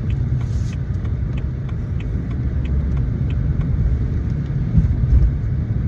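Car driving, heard from inside the cabin: a steady low road-and-engine rumble, with faint light ticks throughout.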